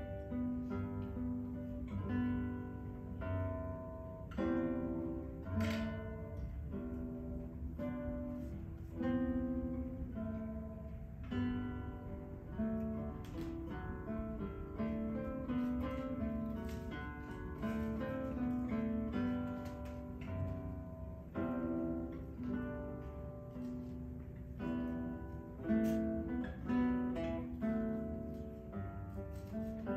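Acoustic guitar music, a melody of plucked notes with some strumming.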